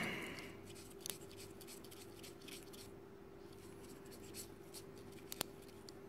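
Faint rustling and scratching of a small wad of paper towel dabbed inside an opened gaming mouse to soak up excess oil around the button switch, with a couple of small sharp clicks.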